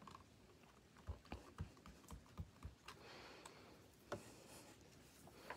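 Faint soft taps, about six in quick succession, then two light clicks, from rubber-stamping tools being handled on the work surface.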